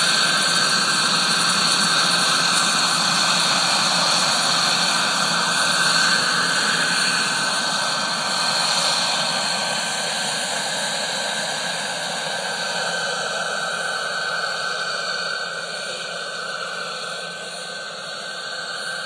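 Jakadofsky gas turbine of a Len Mount Scout scale radio-controlled helicopter running with a steady high whine and rush, mixed with the rotor, slowly fading as the helicopter flies away.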